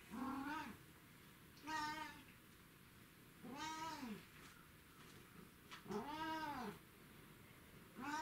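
Domestic cat meowing repeatedly: four meows about two seconds apart, each rising and then falling in pitch, with a fifth starting at the very end.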